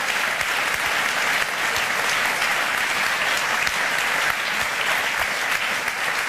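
Studio audience applauding steadily: dense, even clapping from many hands.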